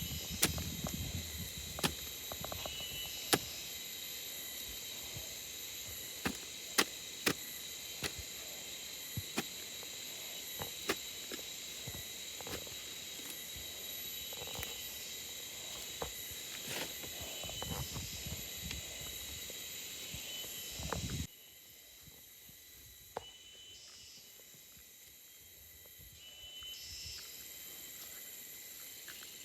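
Steady high-pitched chorus of forest insects, with scattered sharp clicks and knocks and low rustling close by. About 21 seconds in, the clicks and rustling stop abruptly, leaving mainly the insects.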